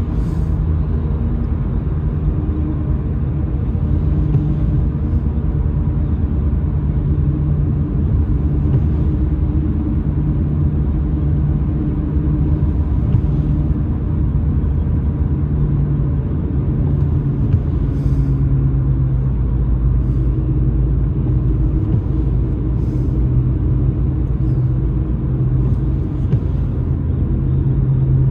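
A car driving on a wet road, heard from inside the cabin: a steady low rumble of engine and tyres. The windscreen wipers sweep with a faint brief swish every few seconds.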